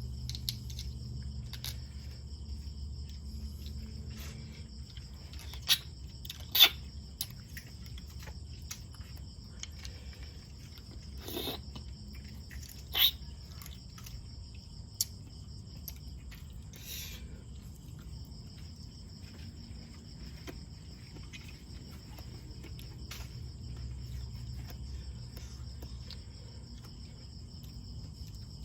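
Crickets trilling steadily in a high, continuous chorus. A few sharp clicks and cracks from the eating stand out over it, two of them much louder than the rest.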